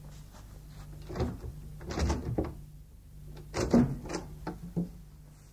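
Sound effect of a wooden door being handled: a handful of dull knocks and thuds spread over several seconds. A faint steady hum and hiss from the cassette tape lies under it.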